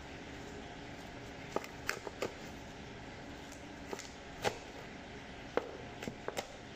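Knife cutting through crispy deep-fried duck on a plastic cutting board: a string of sharp, irregular taps and knocks as the blade chops through and strikes the board, starting about one and a half seconds in, over a steady background hiss.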